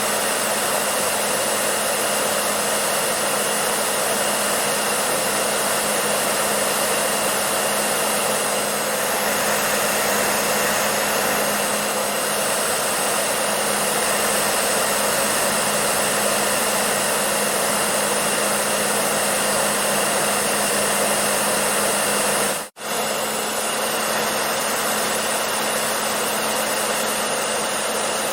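Electric hair dryer running steadily: a rush of blown air over a low motor hum. About three-quarters of the way through it cuts out for an instant and comes straight back.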